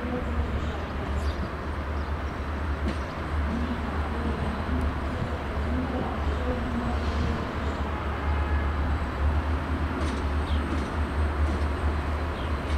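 Class 63 diesel-electric locomotive running as it approaches slowly, its diesel engine making a steady low drone.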